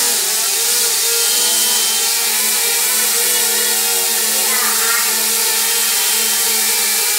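DJI Mavic Mini drone hovering close by, its four caged propellers giving a steady buzzing whine of several tones over a hiss. The pitch wavers briefly a little past the middle as the motors adjust to hold position.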